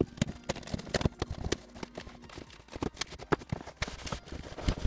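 Cardboard box flaps and plastic-wrapped furniture panels being handled during unpacking: irregular knocks and thumps mixed with rustling and crinkling of plastic sheeting.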